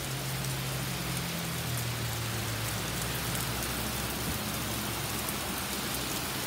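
Heavy rain pouring down and pattering on a wooden porch deck and yard, a steady hiss with fine drop ticks. A low steady hum sits under it for the first four seconds or so, then fades.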